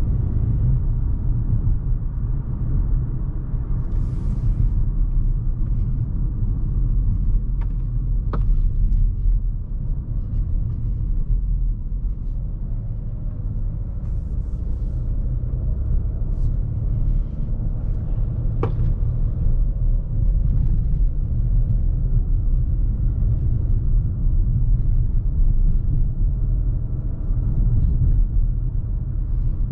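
Steady low rumble inside the cabin of a 2020 Volvo V60 T5 Cross Country at cruising speed: tyre and road noise with its 2.0-litre turbo four-cylinder running underneath. A couple of brief sharp clicks stand out over the rumble.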